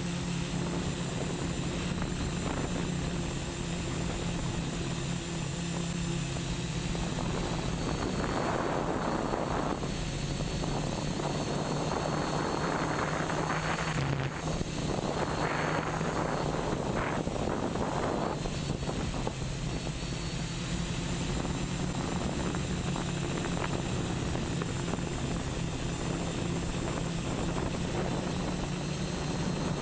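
Octocopter's eight brushless motors and propellers humming steadily in flight, heard from the camera on board, with a steady thin high whine. A rushing noise swells and fades in the middle.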